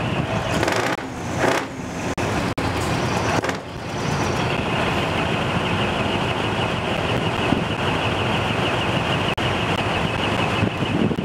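Engines of parked decorated trucks idling, a steady mechanical noise, with a couple of brief swells of noise in the first few seconds.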